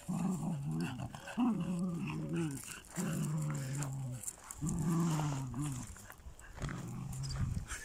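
Wire fox terriers growling in play while tugging on a stick between them: a series of long, low growls, each about a second long, with short pauses between.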